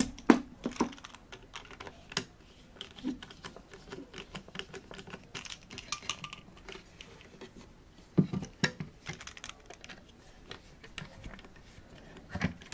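Hard plastic clicking and knocking as a 3.5-inch hard drive is worked loose from its black plastic mounting frame by hand. The clicks and taps are irregular and light, with a few louder knocks near the start and about eight seconds in.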